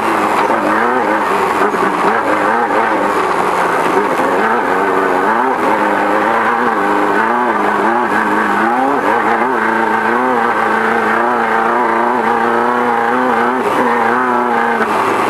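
Beetle-based off-road race car's engine running hard at speed, its pitch rising and falling continually as the throttle works over the desert course.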